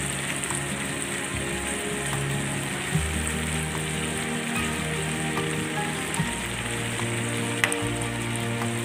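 Chicken pieces sizzling in a pan of coconut milk reduced until its oil separates out, so the meat is frying in coconut oil. There is a single sharp click near the end, and soft background music with held low notes.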